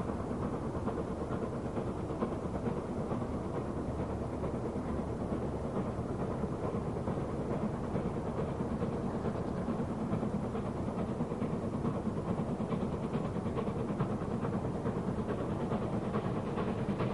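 BR Standard Class 4 4-6-0 steam locomotive No. 75078 leaving a station with a train: a steady running sound of the engine and train on the move.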